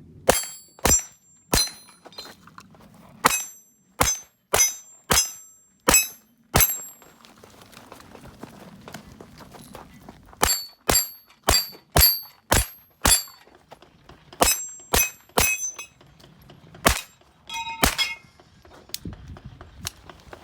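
Taurus TX22 Competition .22 rimfire pistol firing quick strings of shots at steel plates, each crack followed by the high ring of the struck steel. About twenty shots come in four groups, with pauses of a few seconds between them.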